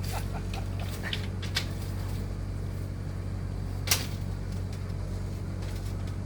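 Heavy excavator diesel engine running steadily with a low hum, with a few sharp knocks over it, the loudest about four seconds in.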